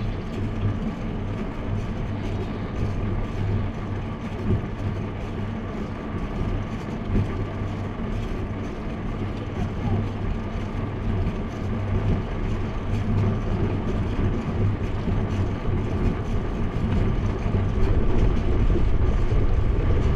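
Wind and road noise on a bicycle-mounted action camera during a ride, with a steady low hum underneath; it grows louder in the last few seconds.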